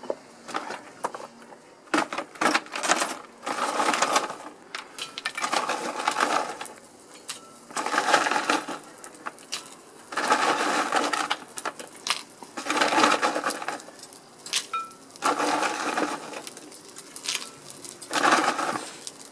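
Lumps of coal clattering as they are tipped onto a coal forge fire, in about eight batches a couple of seconds apart.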